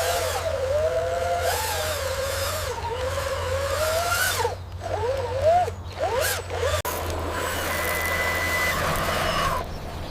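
Small electric motors whining, their pitch rising and falling as speed and load change, with a short break partway through and a harsher, noisier stretch near the end.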